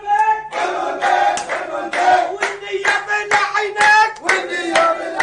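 Several voices singing together loudly, with handclaps through the song.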